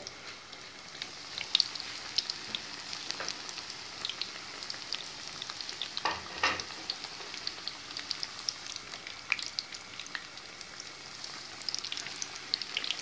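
Hot oil sizzling and crackling as handfuls of potato-and-onion besan batter deep-fry into pakoras, with a louder crackle about six seconds in.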